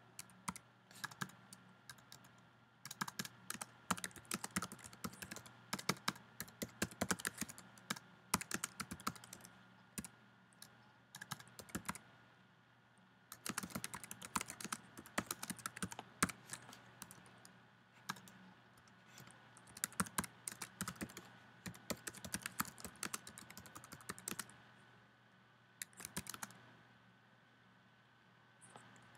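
Typing on a computer keyboard: runs of quick key clicks broken by short pauses, as a sentence is typed.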